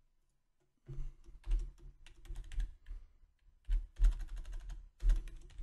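Typing on a computer keyboard: rapid key clicks in three bursts with short pauses between, starting about a second in.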